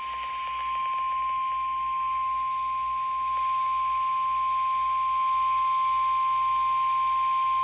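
NOAA Weather Radio 1050 Hz warning alarm tone: one steady, loud, pure beep over radio hiss. It signals that a warning broadcast, here a flash flood warning, is about to be read.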